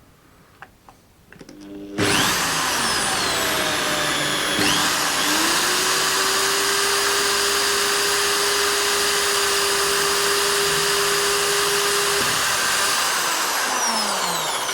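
Electric drill starting about two seconds in and running steadily, boring a hole into a plastic squid jig's body to take a replacement barb, then slowing down with falling pitch and stopping near the end.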